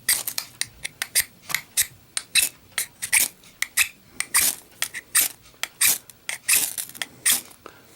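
A Ganzo knife blade scraped repeatedly down a ferrocerium rod fire starter to throw sparks: quick, sharp, high-pitched rasping strokes, about three a second.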